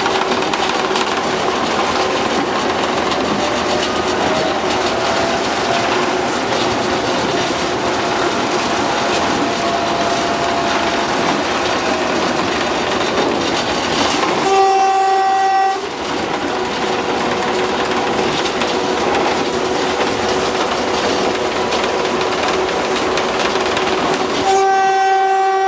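Diesel locomotive heard from its cab, its engine and wheels running steadily along the track. The horn sounds two long blasts, one about halfway through and another near the end.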